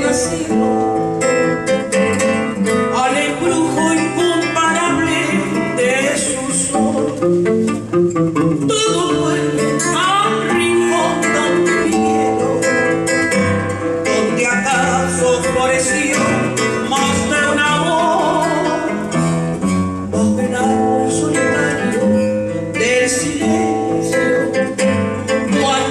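A woman singing a Peruvian vals with nylon-string classical guitar accompaniment, the guitar plucking chords and bass lines under her voice.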